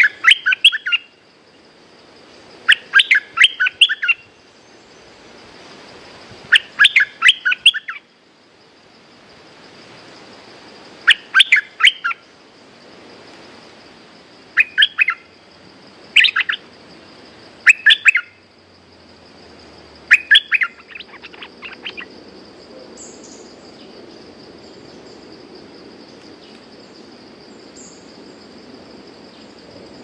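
A bulbul singing in short bursts of rapid, chirpy notes: eight bouts of about one second each, a few seconds apart, ending about two-thirds of the way through.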